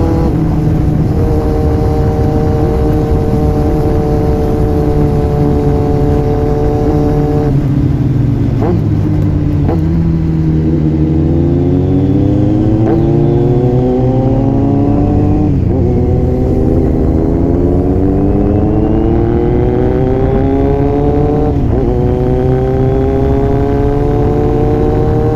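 Kawasaki Z900's inline-four engine heard from the bike while riding. It holds a steady pitch, then falls off about a third of the way in, then climbs in rising sweeps, with a sudden drop at each gear change about two-thirds in and again near the end.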